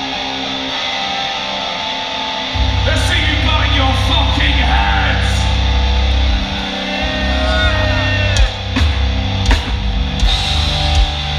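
Live heavy metal band playing through a festival PA. The electric guitar plays alone at first, then about two and a half seconds in the bass and drums come in heavily and the full band plays on.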